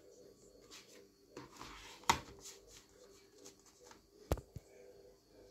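Plastic CD jewel cases being handled and shifted on a cloth: a soft sliding rub, a sharp clack about two seconds in, then a louder knock and a lighter tap a little past four seconds.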